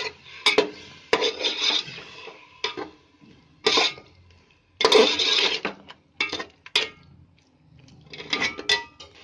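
Flat metal spatula scraping and knocking against a metal pot as a thick onion-tomato masala is stirred and fried, in irregular bursts with short pauses.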